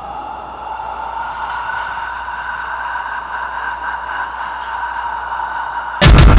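Sustained eerie drone of a few held tones slowly rising in pitch over a faint hiss, then loud electronic music with heavy beats cuts in suddenly near the end.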